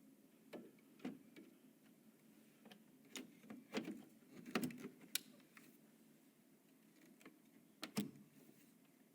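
Scattered light clicks and knocks from PC components being handled and fitted during assembly, about ten irregular taps, the loudest around the middle and near the end.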